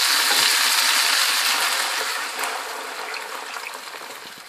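Chicken pieces, onion and peppers sizzling in hot oil in a pan, stirred with a wooden spoon. The sizzle dies down steadily as chicken stock is poured in.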